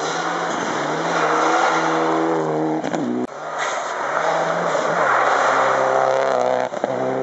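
Rally car engine running hard at high revs on a snowy gravel stage, the note holding steady and then stepping down as the driver changes gear. The sound cuts off abruptly about three seconds in and starts again at a similar pitch.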